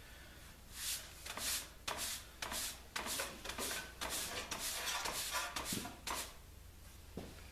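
Irregular scuffing and rustling of someone moving and handling things close to the microphone, from about one to six seconds in, over a faint low hum.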